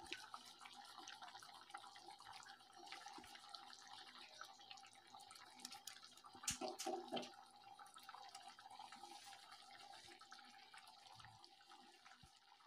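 Faint rasping of paneer being grated on a hand grater over a kadai of simmering gravy, with soft bubbling under a faint steady hum. A few louder scrapes come about six and a half seconds in.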